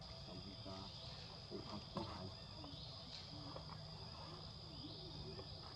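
Steady high-pitched chirring of forest insects, with faint short calls scattered over it and a brief sharp knock about two seconds in.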